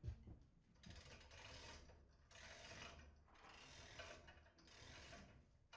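Hand-cranked come-along ratchet being worked in four strokes, each a run of faint ratchet clicking about a second long, taking up slack on the cable under load.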